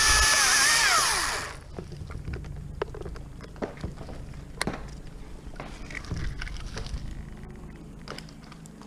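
Chainsaw running at full throttle through a cut, its engine note falling away about a second and a half in as the throttle is released. Scattered sharp knocks and cracks of wood follow.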